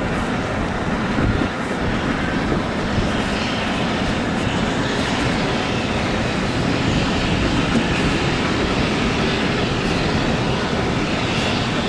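A large engine running steadily under an even rushing noise.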